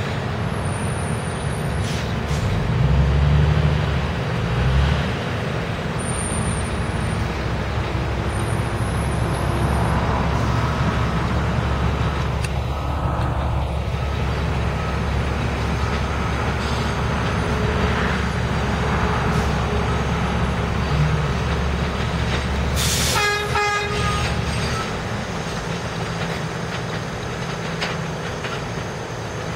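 NYC subway cars rolling slowly through a rail yard with a steady low rumble. About two-thirds of the way through, a short horn toot sounds once, and the rumble eases off near the end.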